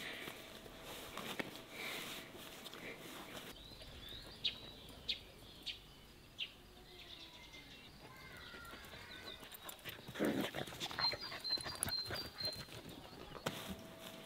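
A dog making soft, gliding whines in the middle, among scattered sharp clicks and knocks.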